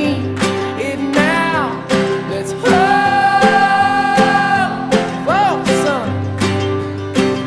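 Background music: a country-style song led by acoustic guitar, with a singing voice.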